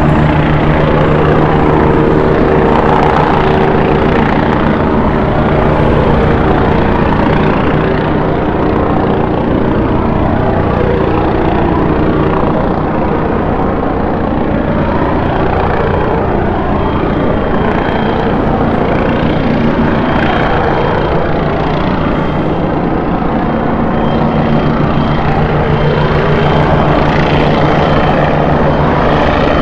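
Helicopter engine and rotor noise running steadily with a fast chopping beat.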